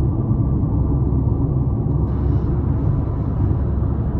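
Steady road and engine rumble inside a Mercedes-Benz car's cabin at highway speed, with a little more hiss from about two seconds in.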